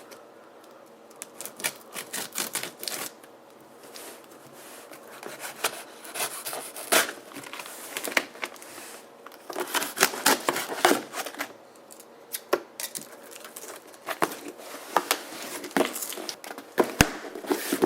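Shipping package being opened by hand: tearing, scraping and crinkling of the packaging in irregular bursts of sharp clicks and rustles.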